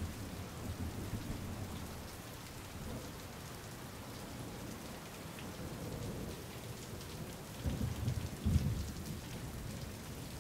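Steady outdoor ambient noise, an even hiss over a low rumble, with two dull low thumps about eight seconds in.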